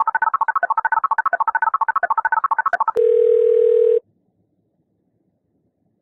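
Telephone keypad tones: a fast run of short two-note beeps as a number is dialled on a phone, followed about three seconds in by a single steady phone-line tone held for about a second before it cuts off.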